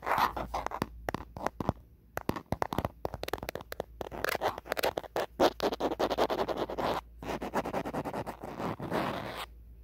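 Natural fingernails tapping and scratching on an old phone: a quick run of taps in the first few seconds, then longer stretches of scratching mixed with taps, which stop suddenly near the end.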